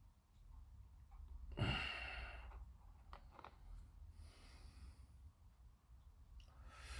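A man sighing once, about a second and a half in, then faint breathing and a couple of small clicks.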